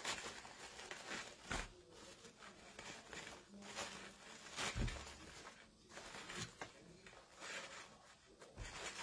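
Wired ribbon and starched cotton fabric rustling and crinkling as a bow's loops are fluffed and handled, with a couple of soft bumps against the table.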